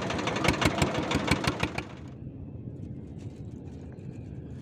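Small fishing boat's engine running, with rapid clicking over the first two seconds; then the sound drops to a quieter low hum.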